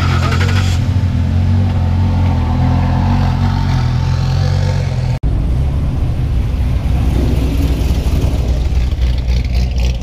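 A Lamborghini Gallardo's V10 engine running as the car rolls slowly past. After a brief dropout about five seconds in, a C6 Corvette's V8 engine runs with a deeper, lower note as it drives by.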